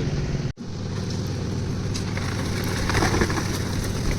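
Concrete mixer's engine running steadily, with a few clattering knocks around three seconds in. The sound drops out for a moment about half a second in.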